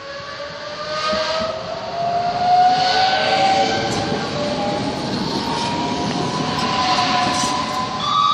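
Regional train running close past the platform: wheels rumbling on the rails under a motor whine that rises steadily in pitch as the train gathers speed.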